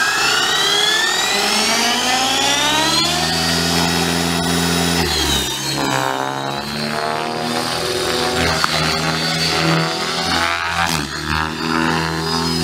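Align T-Rex 600E electric RC helicopter: its motor and rotor whine climb steadily in pitch for the first three seconds as the head spools up, then hold level. From about five seconds in the pitch and rotor sound shift up and down as the helicopter flies.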